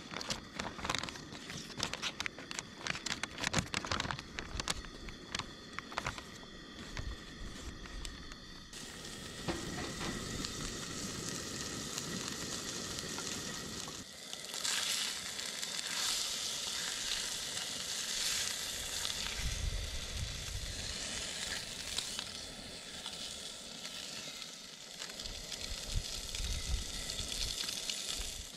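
Food frying in a pan, a steady sizzle that gets louder about halfway through. Before it, for the first nine seconds or so, a run of sharp clicks and knocks.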